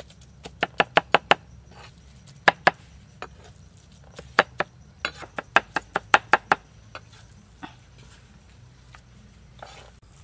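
Cleaver chopping pork and frog meat on a thick wooden chopping block: quick runs of sharp knocks, several strokes a second, with short pauses between the runs.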